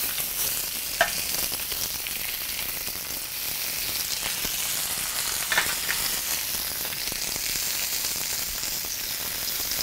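Beef sirloin steak searing on a smoking-hot, oiled ridged grill pan, sizzling steadily with a high hiss. Two short clicks come through, about a second in and about halfway.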